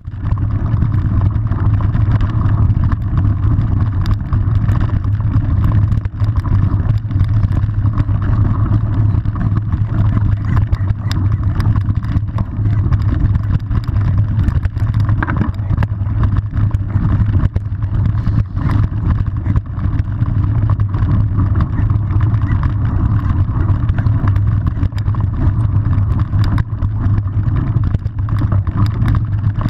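Mountain bike riding over a dirt trail, heard on a bike-mounted camera: a steady low rumble of wind on the microphone and tyres on dirt, with frequent small clicks and rattles from the bike.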